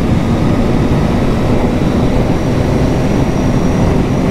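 Yamaha MT-09 SP's 890 cc three-cylinder engine running steadily under way, with no change in revs. Its note is mixed with wind rushing over the microphone.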